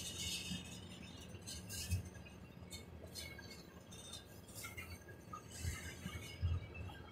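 Norfolk Southern freight train of tank cars rolling past, its steel wheels giving irregular high metallic clinks and squeaks over a low rumble, with heavier low thumps about two seconds in and again near the end as trucks cross rail joints.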